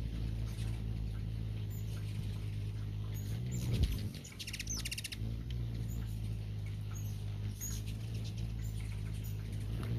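Ruby-throated hummingbird calls: short, high squeaky chips scattered through, with a rapid chittering run about halfway, over a steady low hum.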